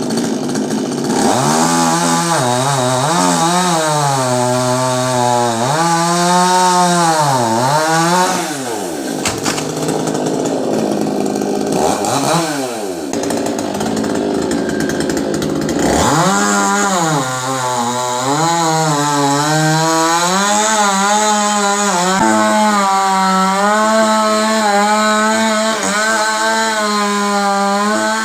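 Two-stroke chainsaw cutting coconut tree wood, its engine pitch repeatedly dipping and climbing back as it revs. About nine seconds in the engine sound thins out for several seconds before coming back to steady high revs with a slight waver.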